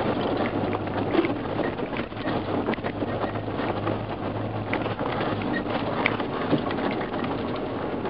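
Off-road 4x4 rolling slowly along a gravel track: tyres crunching and popping over loose stones with many irregular clicks and rattles, over a low steady engine hum that fades out about five seconds in.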